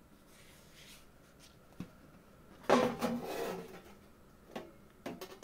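A sheet of tin being picked up and handled: a short scraping rattle about three seconds in, with a few faint clicks before and after.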